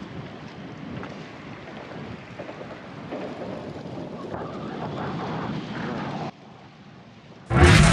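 Strong wind of about 25 mph buffeting the microphone: a steady rush that builds, cuts out abruptly about six seconds in, then comes back as a much louder gust just before the end.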